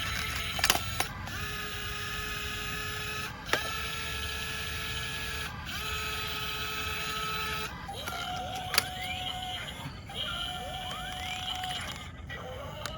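Small electric gear motors of a toy RC excavator whining in a series of runs of about two seconds each. The pitch changes from one run to the next, and some runs begin with a rising whine as the motor spins up. A few sharp clicks are heard, the loudest about a second in.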